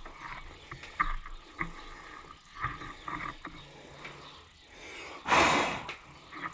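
Light metal clinks and small knocks as a rusty elbow fitting is worked out of the head end of an Oliver hydraulic cylinder by hand, then a short, loud rasping rush about five seconds in.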